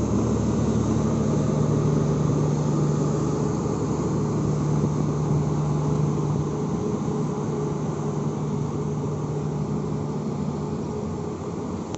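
Steady diesel hum of a passenger train's generator car as the train rolls slowly past during shunting, fading gradually and dropping away near the end.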